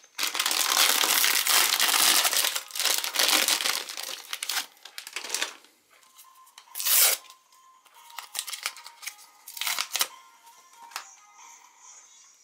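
Plastic wrapper of a Chipicao croissant packet crinkling and tearing as it is opened by hand, followed by several short rips and rustles as the paper sleeve is pulled off a collectible cap. Background music plays quietly underneath.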